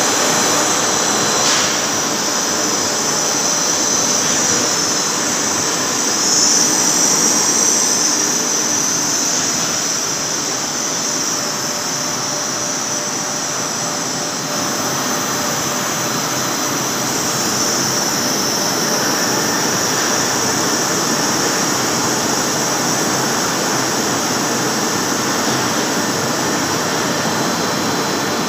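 CNC lathe turning a large steel roll, the spindle running and the tool cutting the steel. The sound is a loud, steady machine noise with a strong high-pitched edge.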